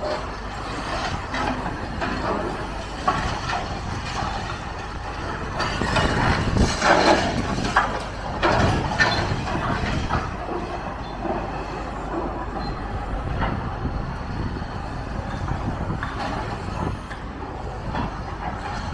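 Demolition machinery working on a building, with an engine running under clattering knocks and crashing rubble. The noise builds to its loudest about six to nine seconds in.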